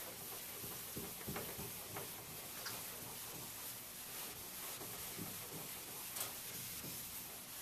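Felt eraser wiping a chalkboard: faint scuffing strokes and a few soft taps, over a steady background hiss.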